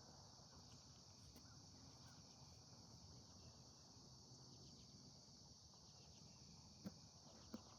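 Near silence with a faint, steady high-pitched insect chorus of crickets, and two faint clicks near the end.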